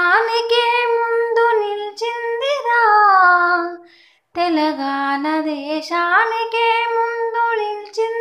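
A female voice sings a Telugu Telangana struggle song unaccompanied, holding long notes in two phrases with a short breath about four seconds in.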